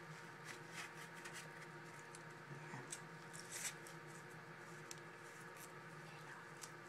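Faint, scattered rustles and small scratches of a fabric dog bootie being pulled onto a paw and its strap fastened, over a low steady hum of room tone.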